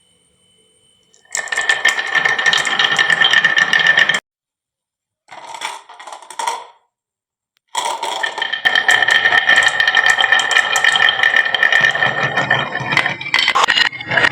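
Marbles rolling and clattering down a wooden marble run track: dense rattling with a steady ringing hum. The sound comes in three runs, each cut off abruptly, the last and longest starting about eight seconds in.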